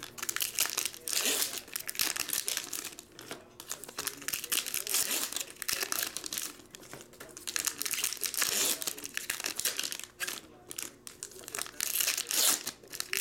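Foil trading-card pack wrappers crinkling and tearing as packs are ripped open one after another, in spells of rustling with short pauses between them.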